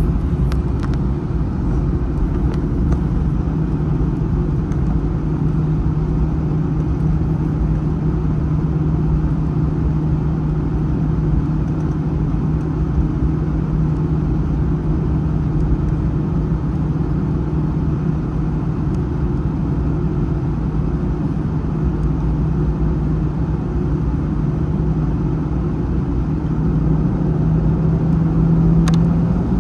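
Airbus A321 jet engines heard from inside the passenger cabin: a steady low rumble with a constant hum, growing a little louder near the end.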